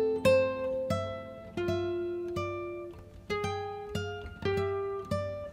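Background music: a slow melody of single plucked guitar notes, each struck and left to ring out and fade.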